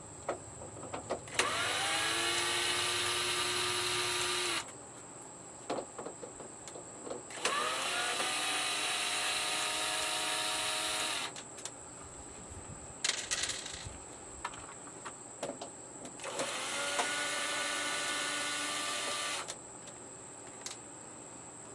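Electric drill-driver backing out the screws of a TV's back panel: three runs of a few seconds each, the motor whine rising quickly in pitch as it spins up then holding steady, with small handling clicks between runs.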